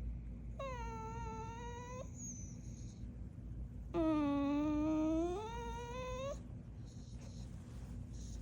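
A dog whining in two long, drawn-out moans, the second louder and rising in pitch near its end.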